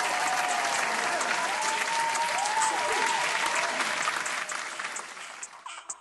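Crowd applause with cheering voices, a celebration sound effect marking a winner reveal. The clapping fades out over the last second or so.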